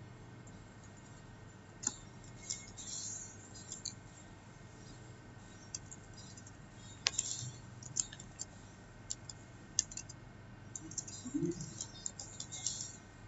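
Computer keyboard keys being typed in scattered short runs of a few keystrokes, with a denser run near the end.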